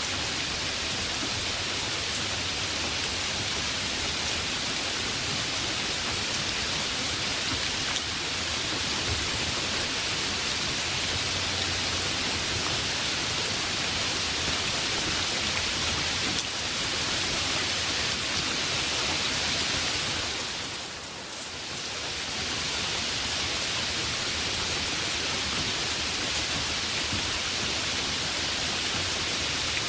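Heavy rain falling steadily, a dense even hiss that briefly softens about two-thirds of the way through.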